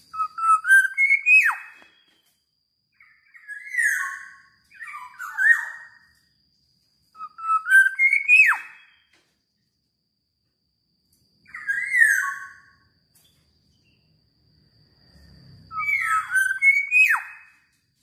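Black-naped oriole singing: six short, loud whistled phrases a few seconds apart, several ending in a sharp downward swoop.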